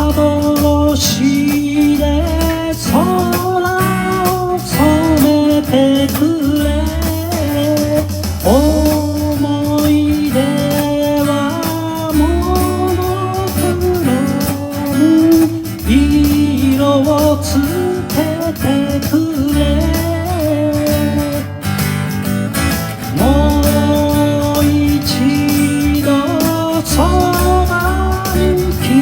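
Pop song music with guitar and a steady bass and beat, a melody line with gliding notes carrying over it.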